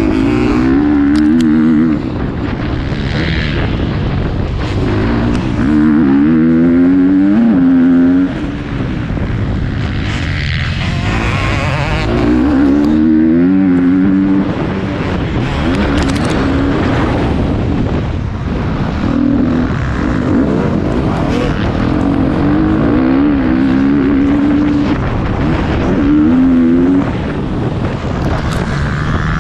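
Motocross bike engine revving hard and backing off over and over as the rider accelerates and shifts through the gears, heard from on the bike itself, with occasional short knocks.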